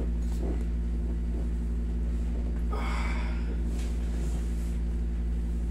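Steady low hum of a window-type air conditioner running in a small room, with one short breathy hiss about three seconds in.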